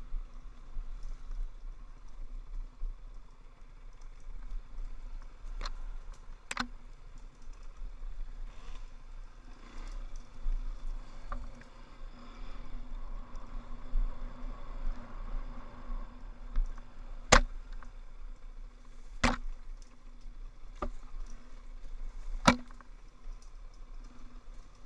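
Off-road motorcycle riding over a rough trail, heard from a camera on the bike: a steady, muffled engine note under rumble and wind noise, with about half a dozen sharp knocks, most of them in the second half.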